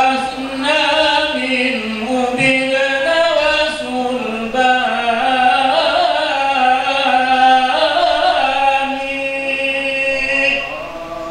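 Unaccompanied Arabic devotional chanting (marhaban praise of the Prophet), sung in long, drawn-out melodic phrases with held notes.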